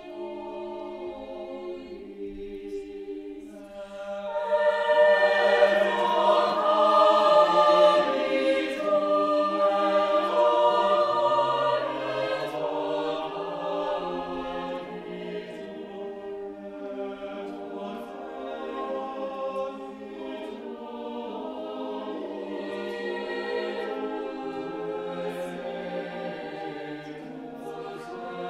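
Mixed chamber choir singing a four-voice sacred Christmas motet a cappella. The voices swell sharply about four seconds in, hold loud for several seconds, then ease back to a softer, steady level.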